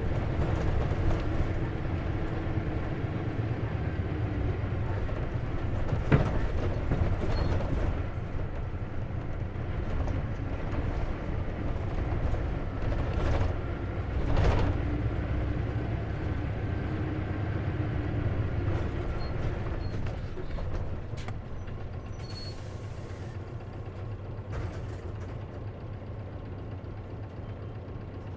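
Isuzu KC-LV380N city bus heard from inside while driving: a steady low diesel engine drone with shifting pitch and cabin rattle. There are two sharper knocks, about six and fourteen seconds in, and the sound gets quieter over the last several seconds.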